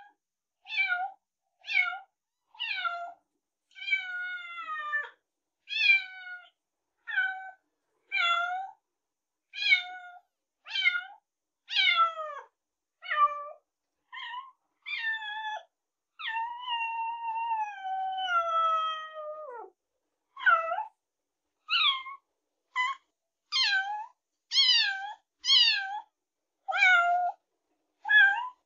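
Young kittens meowing over and over, short high meows that fall in pitch, about one a second. About two-thirds of the way through comes one long drawn-out meow that slides down in pitch.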